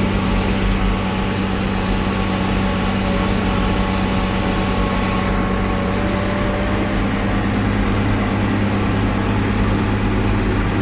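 Tractor engine running steadily at full throttle under heavy load, its pitch holding constant while it tows loaded corn wagons up a hill.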